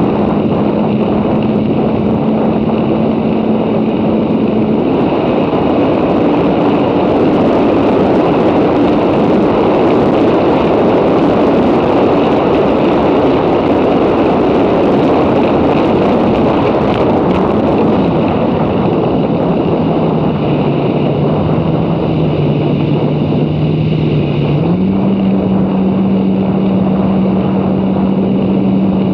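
Jet ski running flat out, its engine drone mixed with heavy wind rush over the microphone and water noise. The rush is strongest for the middle stretch, then eases; the engine note drops about twenty seconds in and climbs again a few seconds later.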